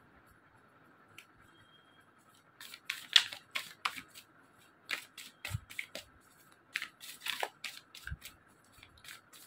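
Tarot cards being handled and shuffled by hand: a run of sharp, irregular snapping clicks that starts about three seconds in, after a quiet start.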